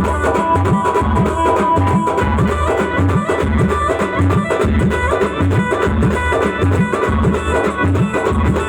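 Band music playing an instrumental stretch of an aarti song: a fast, steady drum beat under a held melody line.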